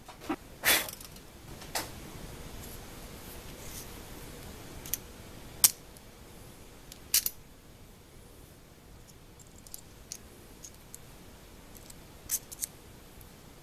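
Small metal parts handled in the fingers: a steel screw and an aluminium arm clicking and tapping together. The clicks are scattered and irregular, and the sharpest comes about halfway.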